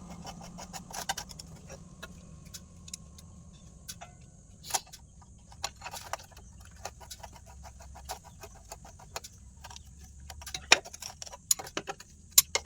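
Scattered metallic clicks and clinks of metal parts and hand tools being handled. They come sparsely at first and grow busier and louder in the last few seconds, over a faint low hum.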